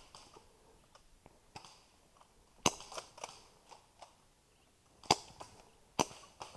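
Airsoft guns firing single shots: three sharp cracks, the first nearly three seconds in and two more close together near the end, with fainter pops and clicks between them.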